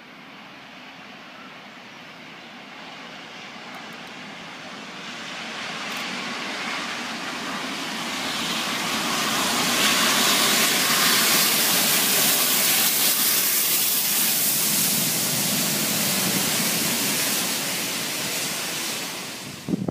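GWR steam locomotives 4965 Rood Ashton Hall and 5043 Earl of Mount Edgcumbe, a Hall and a Castle class 4-6-0, running light engine coupled together and passing below through a cutting. It is a dense rushing, hissing noise that grows louder as they approach, is loudest from about halfway through, holds steady, and cuts off suddenly at the end.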